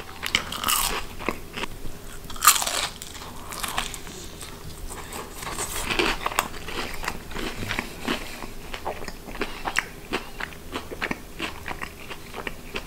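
Biting into and chewing a deep-fried, battered piece of cuttlefish, the batter crunching. There are a few louder crunches in the first half, then a fast run of small crackling crunches as it is chewed.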